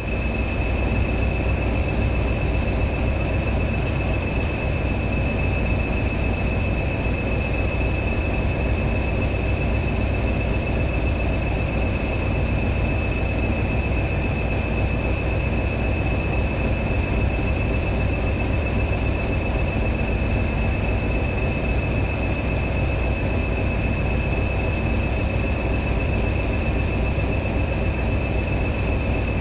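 Class 20 diesel-electric locomotive on the move, its English Electric engine running at a constant pitch with a steady high whine over the low rumble of the train on the track.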